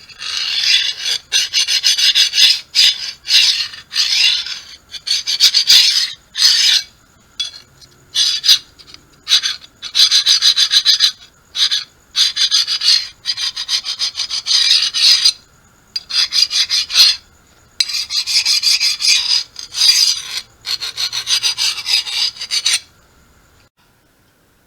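Rapid rasping strokes, loud, in runs of one to three seconds broken by short pauses, stopping shortly before the end.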